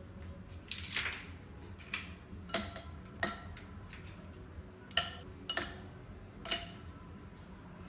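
Hard objects being handled and set down, giving about seven sharp clinks with a short ring, spaced irregularly across several seconds.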